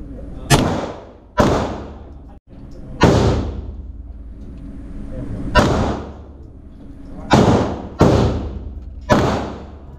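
Handgun fired seven times at an uneven pace, each shot a sharp crack that rings on in the echo of an indoor concrete shooting range.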